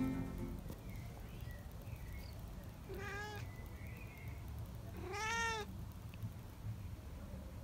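Long-haired tabby-and-white cat meowing twice: a short meow about three seconds in and a longer, louder one about two seconds later, each rising and then falling in pitch.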